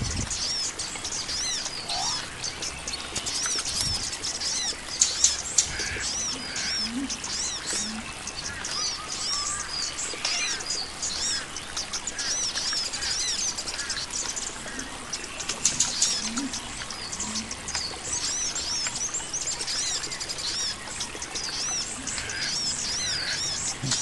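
Wild forest birds calling, a busy run of short, high, repeated chirps, with a couple of brief louder flurries that fit wings fluttering and splashing as small birds bathe in a shallow pool.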